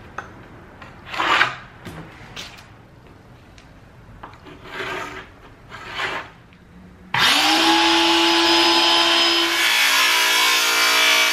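A few short scratching strokes as layout lines are drawn on a pine board along a metal straightedge. About seven seconds in, a Bauer circular saw starts suddenly and runs loud and steady, its pitch dropping near the end as the blade cuts into the board.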